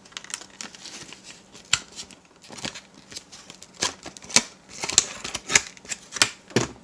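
Knife's retail packaging being opened by hand: irregular sharp clicks and crackles of the packaging being handled and pulled apart, thickest and loudest in the second half.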